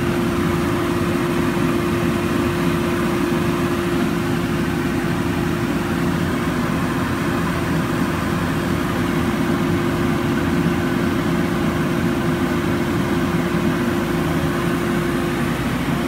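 Techno HD 4x8 CNC router machinery running steadily: a constant rushing whir with one unchanging hum-like tone through it.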